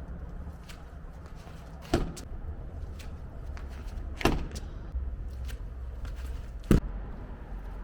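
Three heavy thuds at an even pace, about two and a half seconds apart, with lighter clicks and knocks between them, over a steady low hum: repeated impacts from a gym or throwing exercise.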